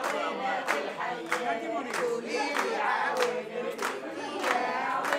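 A group of people singing together and clapping along in steady time, about three claps every two seconds.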